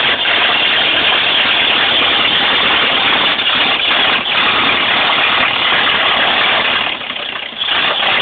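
Ford Model AA truck's four-cylinder engine running steadily and loudly, freshly revived after standing for years, dropping off briefly about seven seconds in before picking up again.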